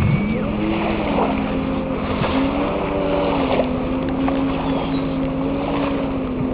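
A steady engine drone with a slightly wavering pitch over wind noise on the microphone, with a few faint clicks.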